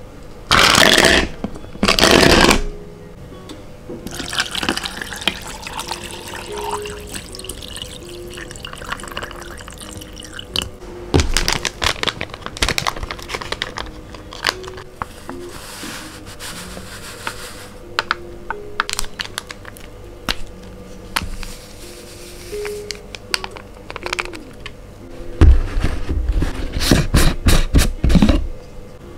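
Water poured into a plastic shaker cup, then powdered shake mix tipped in from a packet and a tub. The scoop and packaging knock against the plastic and rustle, busiest near the end. Soft background music plays throughout.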